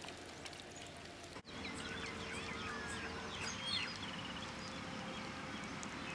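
Small birds chirping in short rising and falling calls over faint outdoor background noise. The chirps start after a brief drop-out about a second and a half in and are busiest for the next two seconds.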